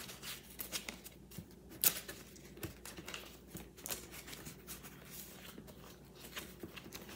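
Paper banknotes rustling and flicking as a bundle of cash is picked up and moved, a faint, irregular run of small paper sounds with one sharper click a little under two seconds in.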